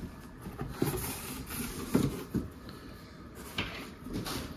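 Gift packaging being handled and opened: rustling, with a few sharp knocks and taps.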